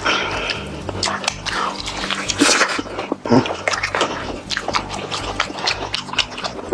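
Close-miked eating of fried chicken: crispy crunches and wet chewing and smacking mouth sounds, coming irregularly.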